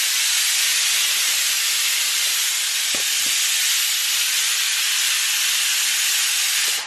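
A loud, steady hiss that stops abruptly near the end.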